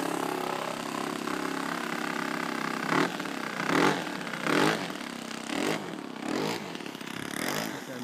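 Demoiselle aircraft's small engine running steadily in flight. From about halfway through come a series of brief louder surges.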